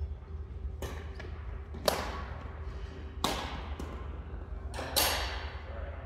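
Badminton rackets hitting a shuttlecock in a rally: three loud, sharp hits about a second and a half apart, with fainter knocks between them.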